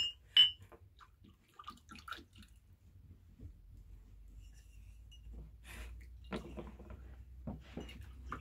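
Small drinking glasses clinking against each other and a plastic tray. A bright ringing clink comes about half a second in, then light knocks and clicks as the glasses are handled, and liquid is poured into them.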